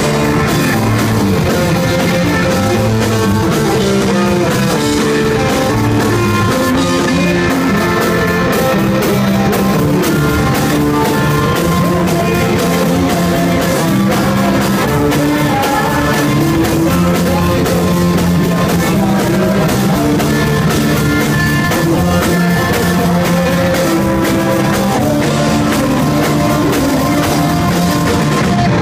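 Punk rock band playing live and loud: electric bass, electric guitar and drum kit, with a male voice singing.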